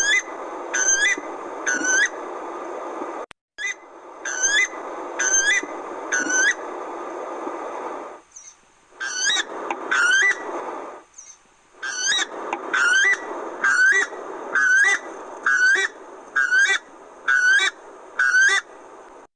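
A forest bird calling in runs of loud, repeated rising whistled notes, a little more than one a second, over a steady rushing background noise. The calls stop and restart abruptly a few times.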